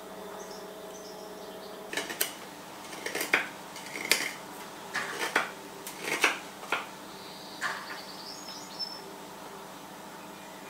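Nessmuk knife blade cutting into a willow spoon blank: about a dozen short, sharp cuts, irregularly spaced and starting about two seconds in. These are the small notching 'beaver chew' cuts that shape the spoon's shoulder.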